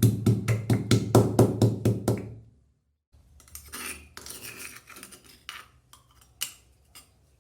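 A fast, even run of knocks on a kitchen surface, about four or five a second, for the first two seconds. After a brief pause come lighter clinks and rattles of utensils and dishes, with one sharper click near the end.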